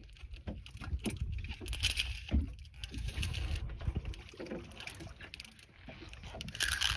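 Water lapping and splashing against the side of a small boat, with irregular knocks and a low, uneven rumble.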